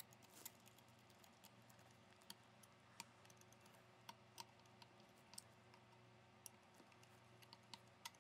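Faint, irregular clicks of a screwdriver turning slotted screws into a rifle handguard, over near-silent room tone.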